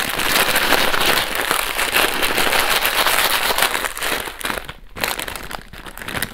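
Plastic instant-noodle snack packet crinkling and crackling as the dry noodles inside are crushed by hand. The noise is dense and steady, then eases into scattered crackles about four and a half seconds in.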